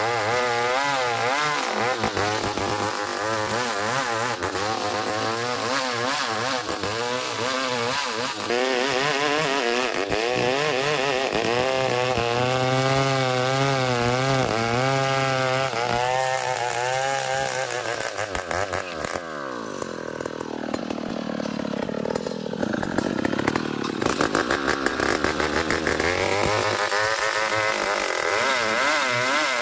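Two-stroke chainsaw cutting into an ulin (Bornean ironwood) log, its engine pitch wavering under load. About two-thirds of the way through the engine note drops and eases off, then climbs back up near the end.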